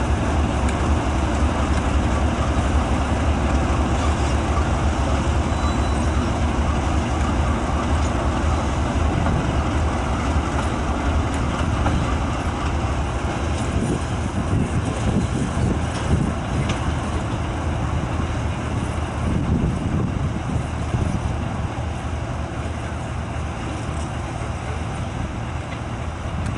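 KiwiRail DX-class (GE U26C) diesel-electric locomotives running, a steady deep engine rumble as they move slowly through the yard, easing a little quieter as they draw away.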